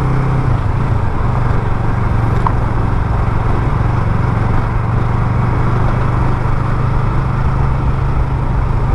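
Yamaha MT-03's 321 cc parallel-twin engine running at a steady, unchanging speed while the motorcycle rolls along a dirt road, with rushing wind and road noise underneath.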